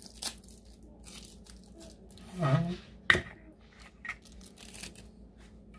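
Foil seals being torn open and straws pushed into small plastic banana-milk bottles: light tearing and crinkling with a few sharp clicks, the sharpest just after three seconds in. A brief voice sounds about halfway through.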